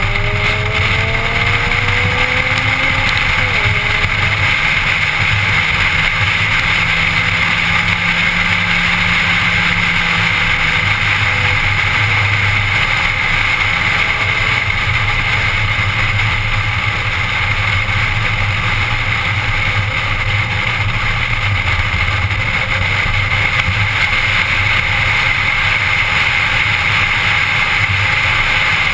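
Car engine and tyre/road noise heard from inside the cabin while driving. The engine note rises under acceleration for the first three seconds, drops at a gear change, climbs briefly again, then settles into steady cruising.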